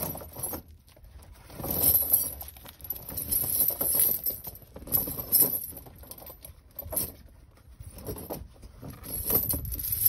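Steel snow chain links clinking and rattling in several irregular bursts as the chain is slid over a truck tire and gathered up from the ground.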